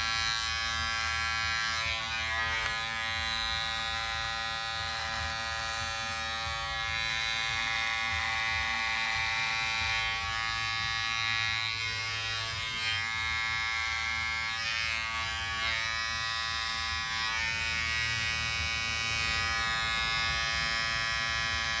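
Cordless electric hair clipper running with a steady buzz, its blade cutting beard hair as it is drawn over the chin and jaw.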